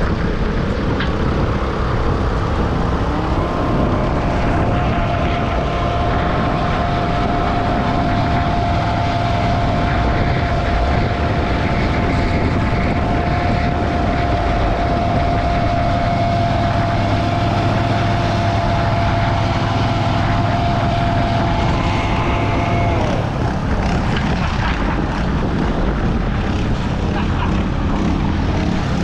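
Diesel tractor engine working hard under full throttle as it drags a weight-transfer pulling sled. The engine note climbs about three seconds in, holds steady under load, then eases off about six seconds before the end.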